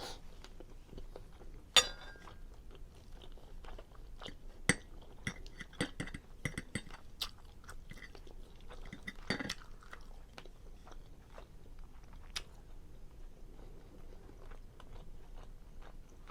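Close-miked chewing of creamy seafood linguine Alfredo with broccoli: wet chewing and mouth smacks, with sharp clicks scattered throughout. The loudest clicks come about two, five and nine seconds in.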